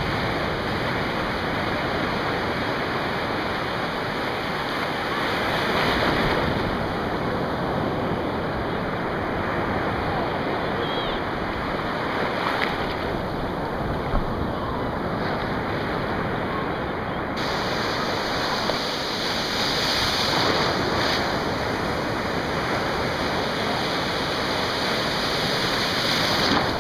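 Ocean surf breaking and washing through the shallows: a continuous rush of water that swells and eases as waves come in, with some wind buffeting the microphone.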